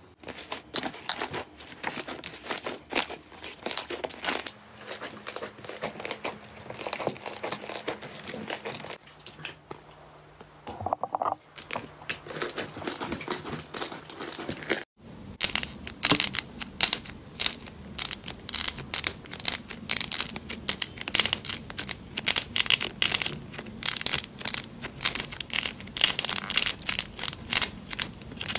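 Slime being kneaded, stretched and pressed by hand, making a dense run of small clicks and pops. Just before halfway there is a brief break, and after it the clicks are louder and denser.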